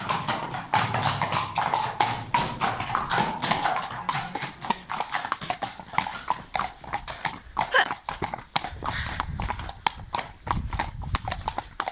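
Hooves of several horses on a tarmac road: a steady, uneven clip-clop of overlapping hoofbeats.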